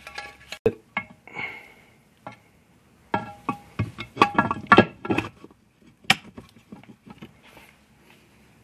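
Irregular metallic clinks and clanks with a short ringing after each, bunched about three to five seconds in, as the aluminium transmission case is worked down over the gear shafts and bearings of a Honda Prelude manual gearbox.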